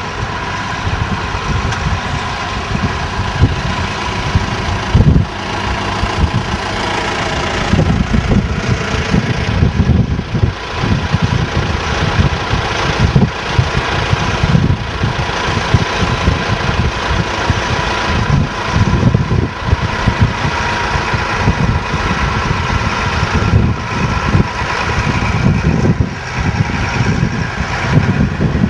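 Tractor engine running steadily, with an irregular low rumble underneath.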